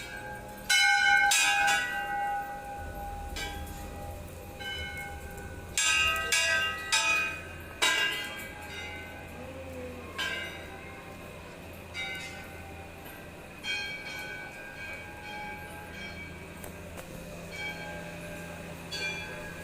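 Hindu temple bells struck again and again at irregular intervals, each clang ringing on, with a quick run of strikes about six to eight seconds in. A low steady hum sits underneath.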